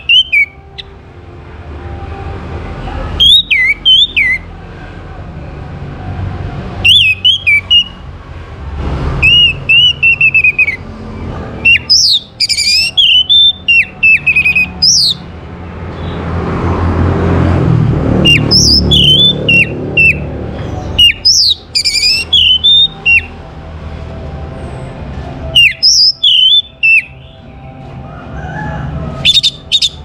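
Orange-headed thrush (Geokichla citrina) singing loudly in its cage: short bursts of high, slurred whistles and warbling phrases every two to four seconds, about nine in all.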